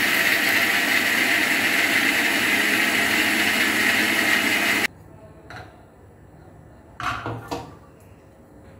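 Electric kitchen mixer grinder running steadily, grinding onions to a paste, then switched off suddenly about five seconds in. Two short clattering knocks follow a couple of seconds later.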